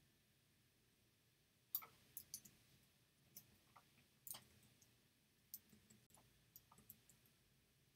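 Faint, irregular clicks from working at a computer, about a dozen in all, spaced unevenly with small clusters about two seconds in, around four seconds in, and near the end.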